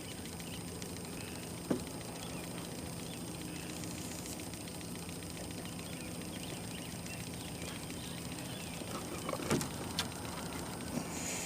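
Boat motor running steadily at its slowest trolling speed, a low even hum, with three short knocks: one about two seconds in and two close together near the end.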